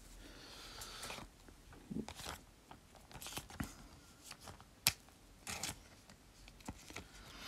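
Pokémon trading cards being handled and set down on a table: soft rustling, then scattered light clicks and taps, the sharpest about five seconds in.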